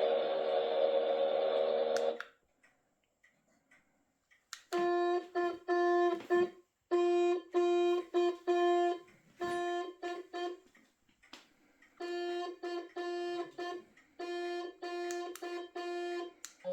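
Electronic sound effects from a Hachette 1/200 scale Titanic model's built-in sound module, played through its small speaker. A steady, full chord-like tone stops about two seconds in. After a short silence comes a long run of short electronic tones on one pitch, starting and stopping in uneven groups.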